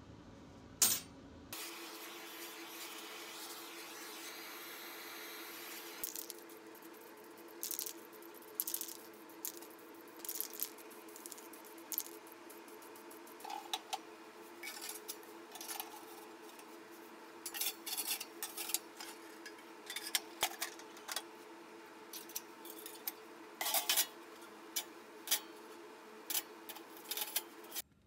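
Irregular light metallic clinks and clanks as the steel parts of a home-made oven rocket stove are handled, including its wire-mesh basket, grill rack and drawer handle. A steady low hum runs underneath.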